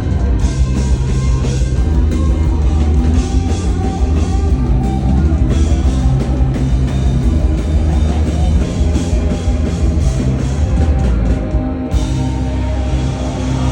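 Loud rock music with a drum kit driving it, the cymbals dropping out for a moment near the end before coming back in.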